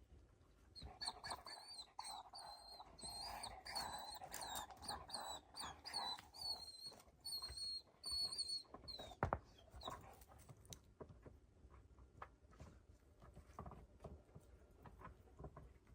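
Dog whining: a run of high-pitched, wavering whines for about eight seconds. A single sharp knock follows about nine seconds in, then faint scattered clicks and rustles.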